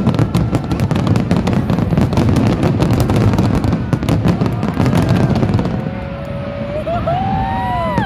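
Aerial fireworks bursting in a rapid volley of bangs and crackles, thinning out after about five seconds. Near the end a person's drawn-out exclamation rises and falls in pitch.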